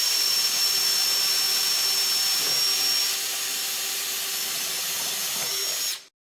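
Power drill spinning an Irwin 4X flat (spade) bit as it bores a hole in wood: a steady high whine over a noisy hiss. It drops slightly in level about three seconds in, then stops abruptly near the end.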